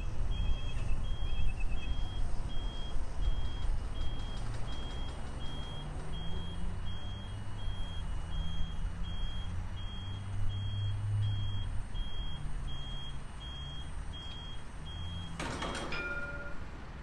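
Motorised sliding gate at a tram depot opening: a warning beeper sounding about twice a second over the hum of the gate drive, ending in a sharp metallic clank near the end.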